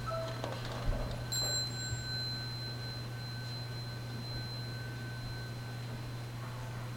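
A metal bell struck once about a second and a half in, its clear high tones ringing on and slowly fading over several seconds, over a steady low hum.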